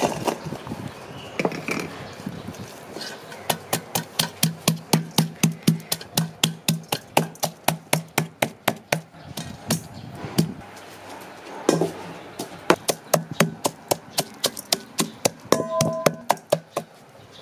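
A wooden pestle pounding fresh red chilies in a stainless steel bowl, a steady run of sharp knocks at about three strikes a second. The knocks stop briefly near the middle, then start again.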